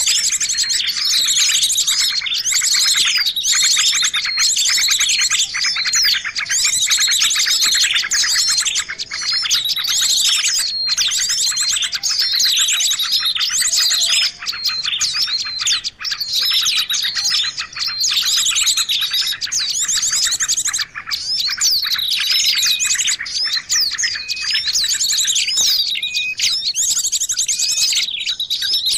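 Many small songbirds chirping and twittering at once in a dense, unbroken chorus of high, quick calls: a bird-lure recording used to draw small wild birds in.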